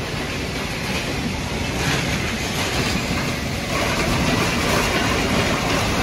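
Conveyors of a refrigerator recycling line running, a steady rattling machine noise that gets louder about four seconds in.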